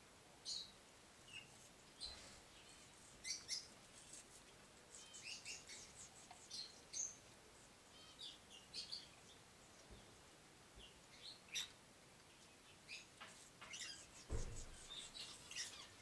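Faint, scattered short high chirps and calls from cockatiels and moustached parakeets, with one dull thump about fourteen seconds in.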